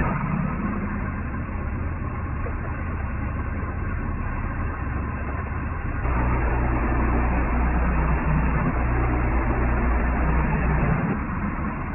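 Gas engine of a Woodland Mills portable band sawmill running steadily as the blade cuts through a spruce log; the sound grows louder about six seconds in and eases near the end.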